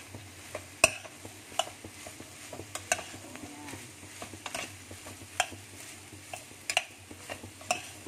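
Metal spoon stirring corn kernels being sautéed in a stainless steel pot: irregular sharp clinks of the spoon against the pot, the loudest about a second in, over a faint sizzle.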